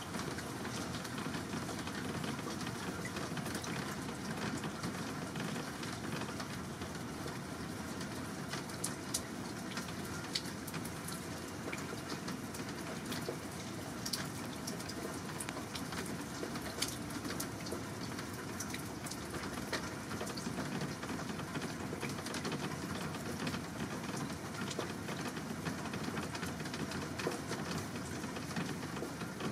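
Steady rushing hiss of water, with scattered faint ticks through it.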